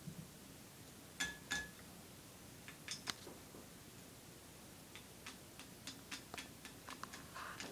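Scattered light clicks and taps from handling a glitter container and a water bottle while getting glitter into it. A pair of taps about a second in ring briefly, and the clicks come quicker near the end.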